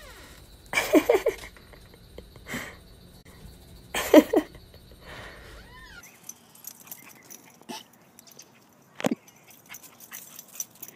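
A dog's short, wavering whining groans, twice: about a second in and again, louder, about four seconds in. A few faint clicks and a sharp tick follow in the second half.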